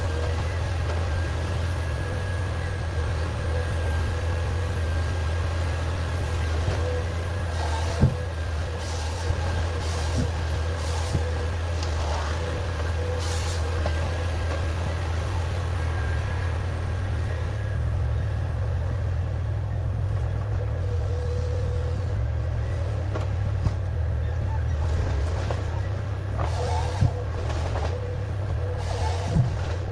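Heavy forestry machine's engine running steadily with a low drone, with a few short sharp knocks and cracks, one loud one about eight seconds in.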